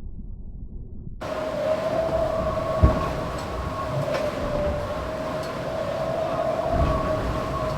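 IMOCA racing yacht sailing fast, heard on board: a loud, even rush of water and wind with a steady high whine over it. It starts suddenly about a second in, and there is one knock about three seconds in.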